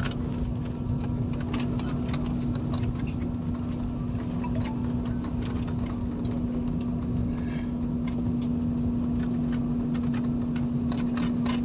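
Airliner cabin noise after landing: a steady engine hum with one strong unchanging tone over a low rumble, and scattered small clicks and knocks.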